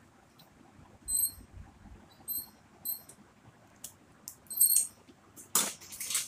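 Pliers working the end of a red electrical wire: four or five short, high squeaks with a few light clicks, and a louder brief noise near the end.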